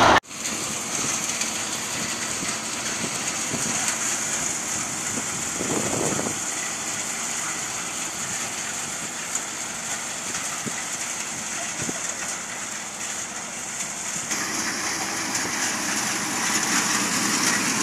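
Tractor-driven thresher running steadily while dry bean plants are fed through it: a constant rushing noise of the threshing drum and chaff over a low engine hum, with a brief louder surge about six seconds in.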